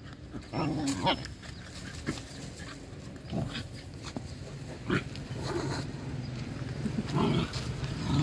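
Dogs playing and digging in the dirt: irregular short scuffles and pawing, with brief dog noises now and then.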